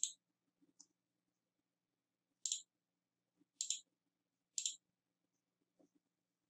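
Computer mouse button clicking: one click at the start, then three clicks about a second apart from about two and a half seconds in.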